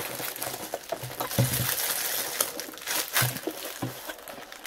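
Cardboard product box and its paper wrapping rustling and crinkling as they are handled and opened, with a few soft knocks.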